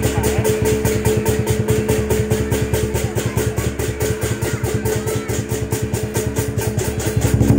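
Lion dance percussion: drum and cymbals beating a fast, even rhythm of about five strokes a second.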